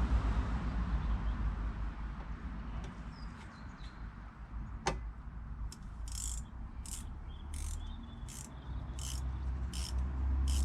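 Short, regular scraping or scrubbing strokes, about three every two seconds, begin about six seconds in, over a low rumble. A single sharp click comes near the middle.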